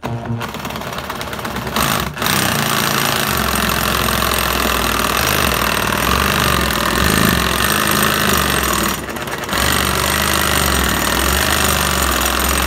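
Cordless reciprocating saw running steadily, its blade cutting through drywall coated in shaving cream, easing off briefly about two seconds in and again about nine seconds in.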